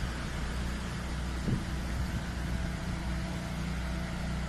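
A steady, low engine-like hum, with a single short knock about one and a half seconds in.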